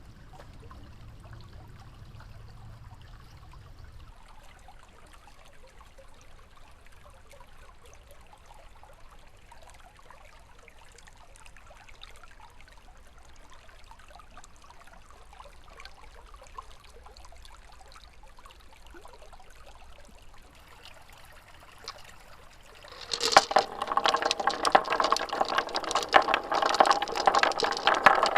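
Marbles rolling along a marble run track: a faint, steady trickling roll with small clicks. About 23 seconds in, a loud dense clatter of many marbles rattling, with a ringing pitched tone through it.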